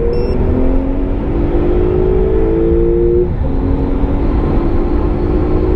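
Porsche 991.1 Turbo S's twin-turbo 3.8-litre flat-six, chip-tuned to 615 hp, pulling at full throttle, heard from inside the cabin: the revs climb, drop with one upshift about three and a half seconds in, then climb again. A steady road and tyre rumble runs underneath.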